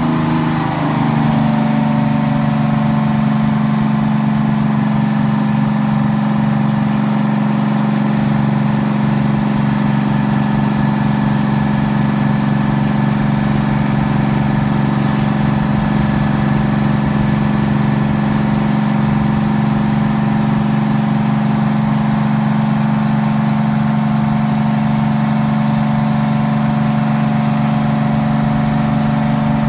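1974 Grove TMS300 truck crane's engine running steadily while the boom is lowered and telescoped out, its pitch dropping a little about a second in and then holding even.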